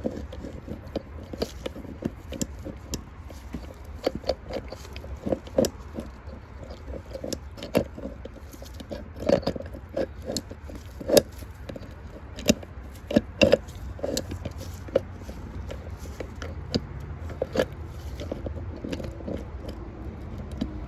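Irregular clicks, taps and knocks of metal winch parts and tools being handled during reassembly, a few louder clanks among them, over a steady low hum.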